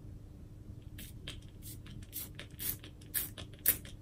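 Pump spray bottle of facial oil-serum being pumped into a palm: about six short spritzes in a row, starting about a second in, roughly two a second.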